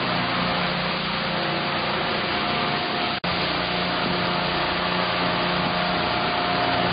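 A steady machine hum with a hiss, holding a couple of steady tones. It cuts out for an instant about three seconds in.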